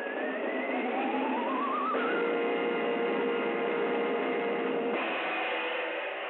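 Music from a 1932 cartoon soundtrack: held chords with a wavering note that glides upward over the first two seconds, the chord changing about two seconds in and again about five seconds in. The sound is thin and hissy, with no treble, as on an early sound-film track.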